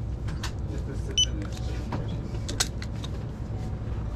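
A single short electronic beep from a shop's self-checkout terminal about a second in, over a steady low hum, with a few light clicks of handling.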